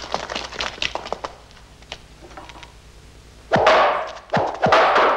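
Fight-scene sound effects: light scuffling knocks at first, then two loud thunks about a second apart as thrown knives strike a wooden wall.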